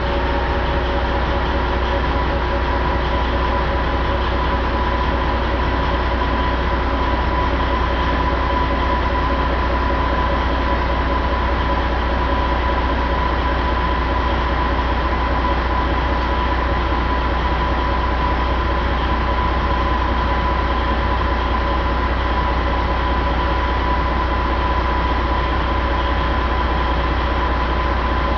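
Detroit Diesel Series 60 11.1-litre inline-six turbodiesel running steadily on a test stand, a deep even rumble with a steady high whine over it.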